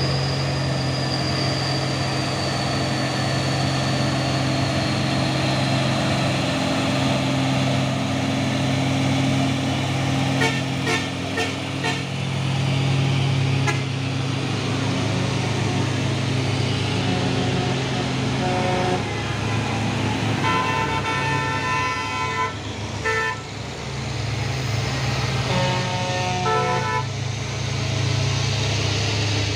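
Heavy truck engines running steadily as the trucks pass close by. In the second half there are several short horn toots.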